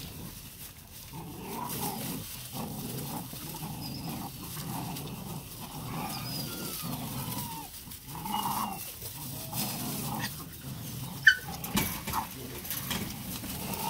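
A litter of puppies play-growling and giving short whines and yelps as they wrestle and tug at a toy, with dry leaves rustling under their paws. A sharp yelp about eleven seconds in is the loudest sound.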